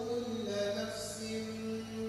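A man reciting the Qur'an in a slow melodic chant, holding long notes and sliding between pitches, with a low steady electrical hum underneath.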